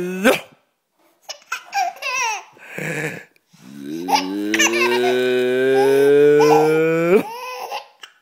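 A man making funny drawn-out vocal noises: a long held tone that rises slowly and swoops up at the end, the loudest sound here. A baby laughs in short bursts between the noises.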